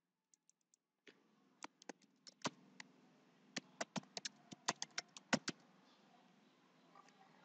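Computer keyboard typing: a run of irregular keystrokes, with a few faint clicks just before it starts.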